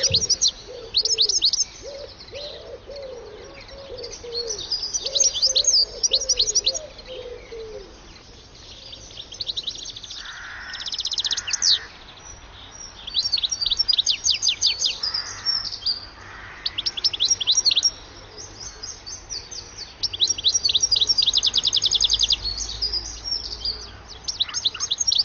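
European goldfinch twittering: bursts of rapid, high chirps and trills, each lasting one to three seconds, broken by short pauses. A fainter, lower warbling sound runs underneath for about the first eight seconds.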